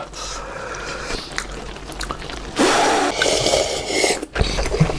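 Close-up wet chewing and mouth sounds of someone eating, with small clicks. About halfway through there is a loud breath lasting over a second.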